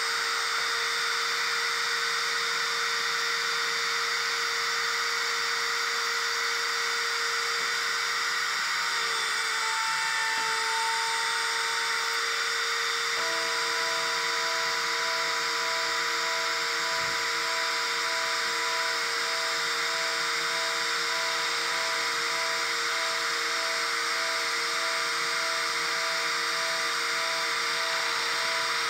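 Home-built CNC PCB drilling machine running, its small spindle motor giving a steady high whine as it drills holes in a circuit board. About halfway through, a second set of steady humming tones joins in.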